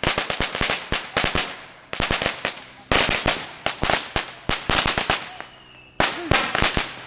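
A 10,000-round string of firecrackers going off in rapid, irregular volleys of sharp cracks. There are short lulls about two seconds in and again around five to six seconds before the popping picks back up.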